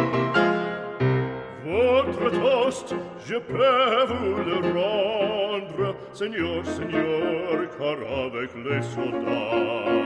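Background music in a classical style: steady instrumental notes, joined about two seconds in by a singing voice with wide vibrato.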